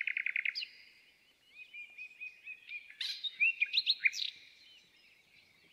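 Songbirds singing: a rapid trill at the start, then a series of short chirps and whistled notes that fade out near the end.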